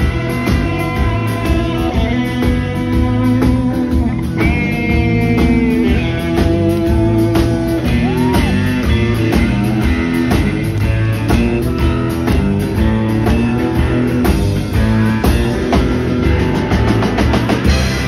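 Live rock band playing a boogie number: two electric guitars over a steady drum beat and bass, with lead guitar notes bent in pitch.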